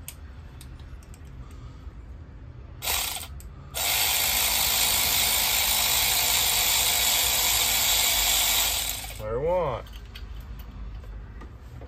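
Cordless electric ratchet running while it backs out a spark plug on a Dodge Magnum engine. It gives a short burst about three seconds in, then runs steadily for about five seconds and stops abruptly.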